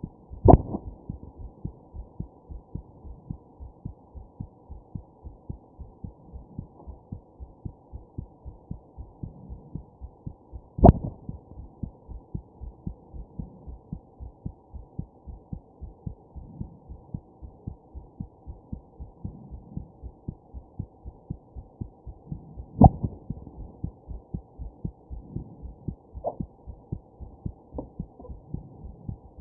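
Muffled human heartbeat, a steady run of quick thumps. Hiccups break in as three much louder sudden jolts, one about half a second in, one about a third of the way through and one about three-quarters through, with a weaker one soon after the last.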